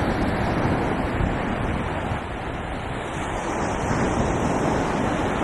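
Surf washing onto a beach: a steady rush of breaking waves that eases a little in the middle and swells again near the end.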